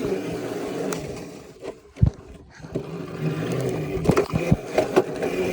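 Small mini bike's motor running with a steady hum that dies away about a second and a half in. A sharp knock comes near the two-second mark, then the motor picks up again with several knocks and rattles.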